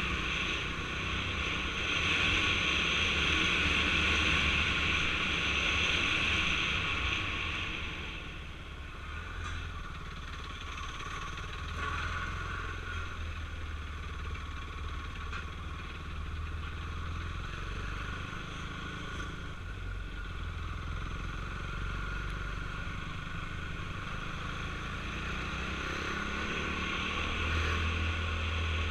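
KTM Duke 390's single-cylinder engine running as the motorcycle rides along a dirt road, louder for the first several seconds and settling lower about eight seconds in.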